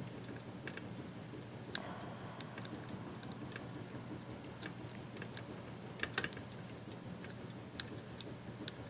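Steel lock pick and tension wrench working the pins inside a Bearsback challenge lock: scattered light metallic clicks and ticks, with a quick cluster of louder clicks about six seconds in.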